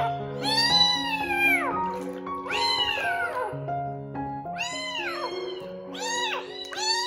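Very young kitten meowing repeatedly, about five high calls that each rise and then fall in pitch, over background piano music.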